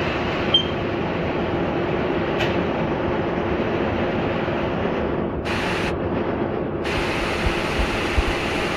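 Philips DP-70 70mm film projector running, a steady mechanical whirr with a constant hum.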